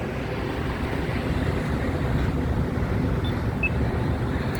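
Steady road traffic noise: cars passing with a continuous low rumble.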